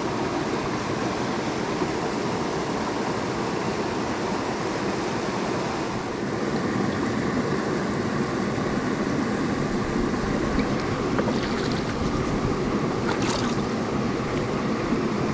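Mountain stream water rushing steadily over rocks, with a couple of brief sharp clicks near the end.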